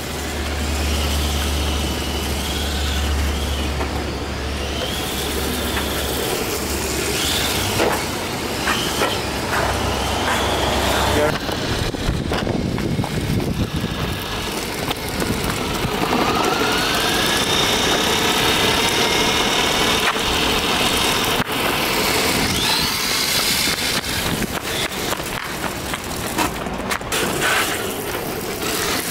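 Electric motor of a 1:10 HSP Flying Fish RC drift car whining as it speeds up and slows, with a rising whine about halfway through, and its tyres sliding over paving while it drifts.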